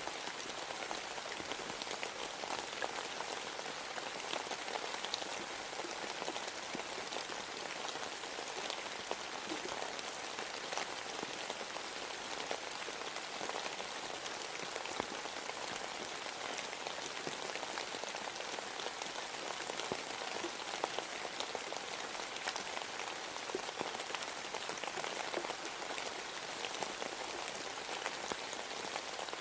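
Steady rain falling on a surface: an even hiss with many small individual drop taps scattered through it.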